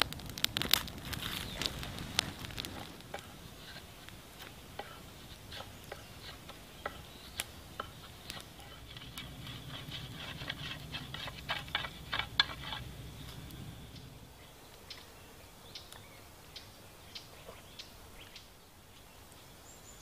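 Small twig fire crackling as it catches, then a knife shaving a dried hazel staff in a run of quick scraping strokes about halfway through. Only a few faint crackles follow.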